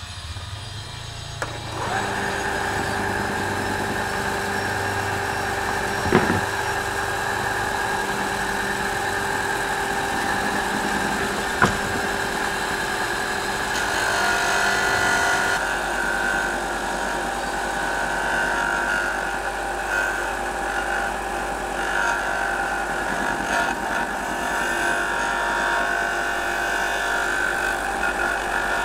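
Benchtop 4 x 36 inch belt-and-disc sander's electric motor coming up to speed over the first couple of seconds, then running with a steady hum and whir, with two brief sharp clicks in the first half. From about halfway, a small wooden block is pressed against the spinning sanding disc, adding a hissing sanding noise.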